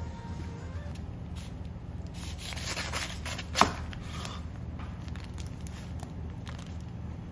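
A chef's knife sawing through a sandwich wrapped in brown paper, the paper crackling and rustling under the blade, ending in a sharp knock about three and a half seconds in as the blade meets the wooden cutting board. Softer paper rustling follows as the wrapped halves are handled.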